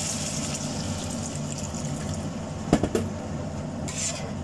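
Water pouring into a hot wok of sautéed green beans and smoked fish, the pour fading out about halfway through. Near three seconds come two sharp knocks, the loudest sounds, as a spatula strikes the wok.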